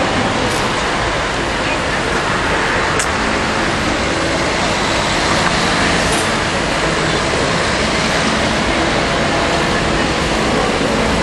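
Steady street noise from road traffic, with indistinct voices of people mixed in.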